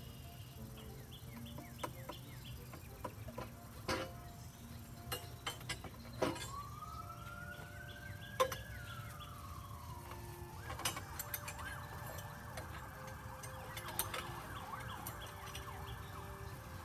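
Scattered light clinks and knocks as the aluminium frame of a chainsaw mill is handled and lifted off a log, with no saw running. Behind them a faint tone rises and falls about halfway through, then holds steady, like a distant siren.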